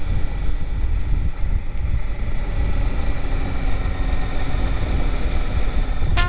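Suzuki GSX-R 750 K4 sport bike's inline-four engine running steadily on the move, heard through wind rush over the microphone.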